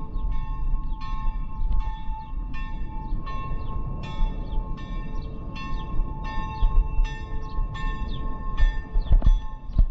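A bell ringing in a steady rhythm of about two strokes a second, its tone lingering between strokes, over the low rumble of wind on a bicycle rider's microphone.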